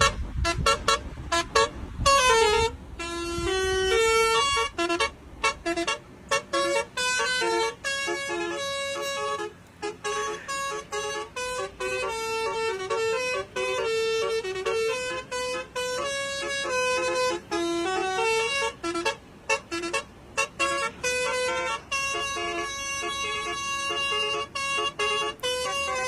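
A lorry's telolet basuri musical horn playing a quick tune of short stepped notes, one after another with brief gaps.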